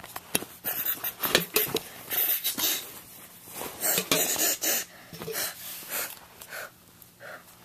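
Close handling noise as plush toys rub and bump against the camera: irregular rustling with scattered small knocks.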